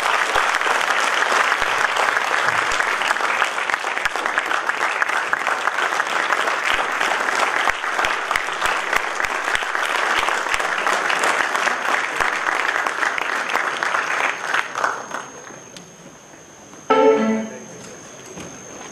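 A large hall audience applauding, a long sustained ovation that fades out about fifteen seconds in. Near the end there is one brief loud burst, like a voice or a knock over the hall's speakers.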